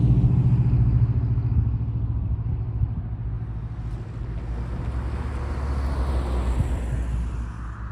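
Road traffic: the engine hum of one vehicle fading away at the start, then a car approaching and driving past close by, growing louder toward its pass in the second half.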